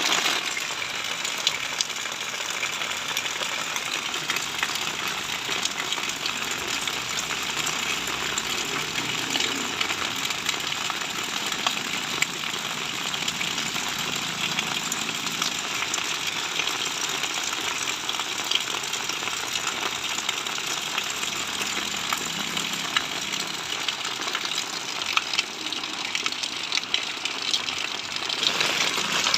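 Heavy rain falling steadily, a dense even hiss flecked with countless drop ticks.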